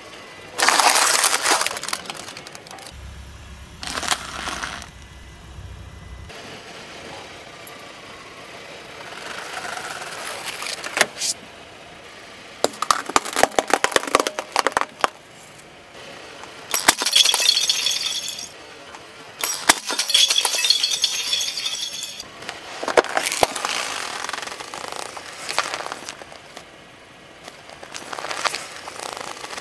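Objects, stacked plastic cups among them, cracking and crunching as a car tyre rolls over and crushes them. There are several separate bursts of crunching, some full of quick sharp cracks, with quieter gaps between them.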